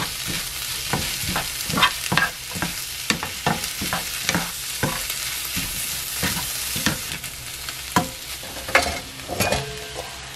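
Bitter melon, ham and onion sizzling in a nonstick frying pan while a wooden spatula stirs and scrapes through them, about two strokes a second.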